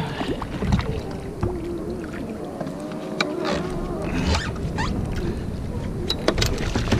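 Sea water sloshing against a plastic fishing kayak's hull, with wind rumbling on the microphone. Scattered sharp clicks and knocks sound against the boat.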